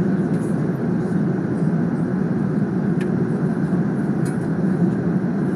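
Steady cabin noise of an airliner in flight: the constant rush of the engines and the air streaming past the fuselage, heard from a window seat.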